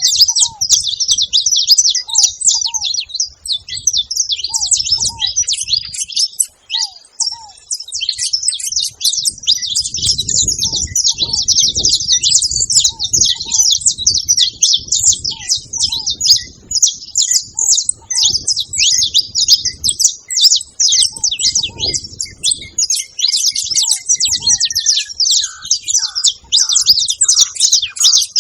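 A flock of saffron finches chattering at a feeding spot: a dense, unbroken mass of fast high chirps. A lower note repeats in pairs every second or two, and a falling whistle near the end settles into a steady tone.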